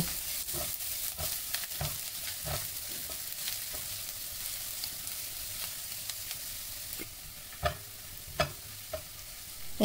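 Chopped onions sizzling in hot oil in a kadai while a spatula stirs them, with scattered scrapes and taps of the spatula against the pan; two louder taps come near the end.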